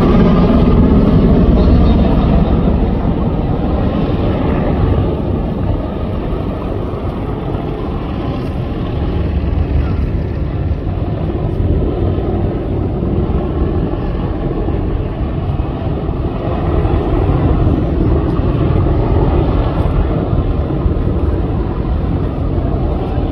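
AH-64D Apache attack helicopter flying overhead in a display manoeuvre, its rotors and turbine engines making a steady, loud noise. It is loudest at the start, eases somewhat, then builds again after about seventeen seconds.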